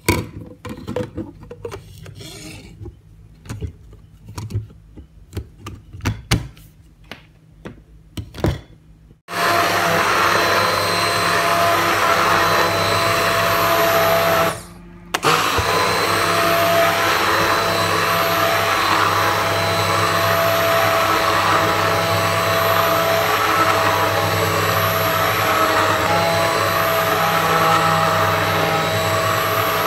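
Handheld stick blender: a few clicks and knocks as it is handled and its shaft fitted. Then, about nine seconds in, the motor starts and runs steadily, puréeing boiled pumpkin in a pot of soup. It cuts out once for under a second around halfway through.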